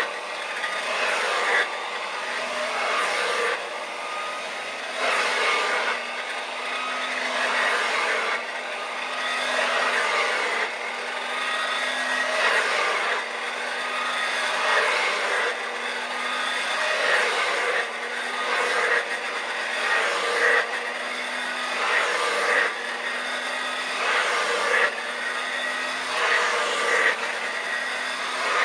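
1930s Hoover Dustette 100 hand-held vacuum cleaner running at full power with a steady motor hum and rushing air. The sound swells and dips about every two seconds. It is a working old motor drawing strong suction.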